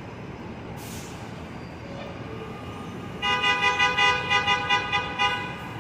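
A vehicle horn honked in a rapid string of about ten short toots, roughly four a second, over steady traffic and rail background. A short hiss comes about a second in.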